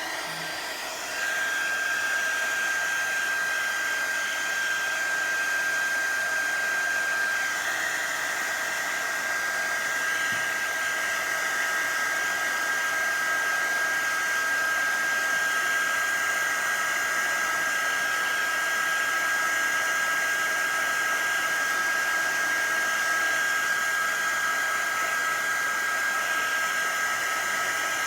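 Embossing heat gun blowing steadily: a constant rush of air with a high whine from its fan motor, which winds up to speed about a second in and holds steady.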